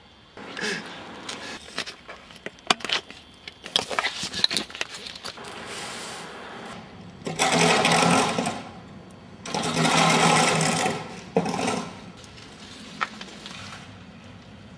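A small machine motor buzzing in two bursts of about a second and a half each, about halfway through, after a stretch of scattered clicks and knocks.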